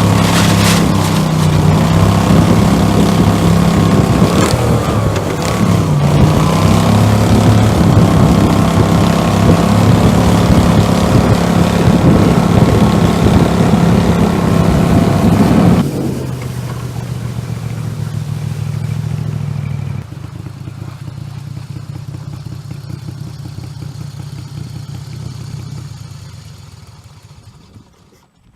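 Boat outboard motor running hard with its pitch wavering, throttling back to a quieter, lower run about two-thirds of the way through, dropping again, then fading away near the end.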